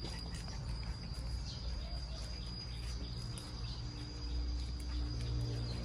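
A steady high-pitched insect trill over a low rumble, with faint rustling of leafy greens being sorted by hand.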